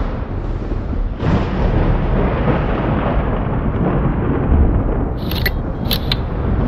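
Thunder rumbling heavily and continuously, with a fresh crash rolling in about a second in. Near the end come a few short, sharp high clicks.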